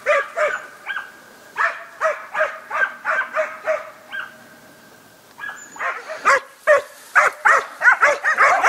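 West Siberian Laika puppy baying a wild boar: bursts of repeated pitched barks, a short lull about halfway through, then faster, almost unbroken barking toward the end.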